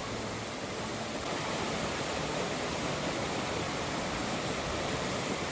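Steady rush of water from a small hot-spring waterfall pouring over rock into a pool.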